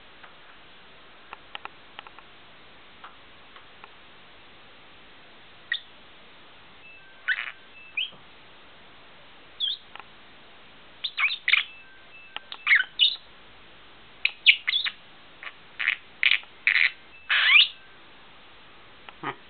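Fischer's lovebird giving short, sharp, high chirps, a few scattered ones at first and then quick runs of several chirps in the second half.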